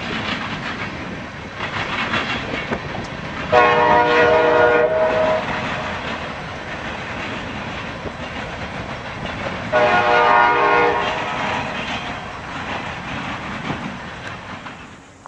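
Freight train rolling past with a steady clatter of its cars, while a locomotive air horn sounds twice: a blast of about a second and a half about three and a half seconds in, and a shorter one near ten seconds. The train's noise fades near the end.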